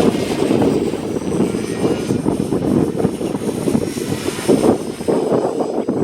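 Strong wind buffeting the microphone in gusts, with the thin whine of a 450-size electric RC helicopter's motor and rotors above it.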